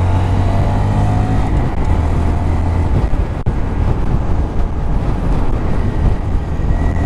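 Honda Monkey 125's single-cylinder four-stroke engine running steadily on the move, under heavy wind rush on the microphone.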